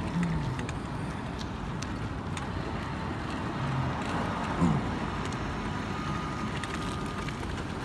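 Pedal go-karts and a bike trailer rolling along an asphalt street: a steady hiss of tyre and road noise, with a brief falling tone a little past halfway.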